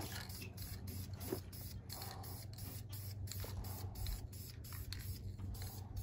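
Aerosol can of self-etching primer hissing in a run of short spurts, laying down a light first guide coat.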